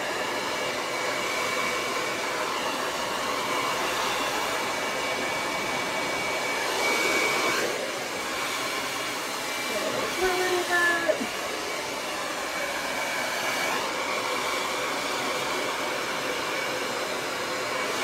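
Handheld hair dryer blowing steadily, a rushing air noise with a thin steady whine, its level rising and falling a little as the dryer is moved about over the hair.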